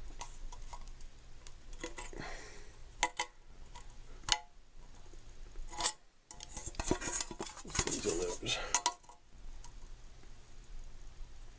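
Pliers working the riveted handle bracket of an aluminum mess-kit pot: scattered metal clicks and clinks, with a busier stretch of scraping and clattering about halfway through.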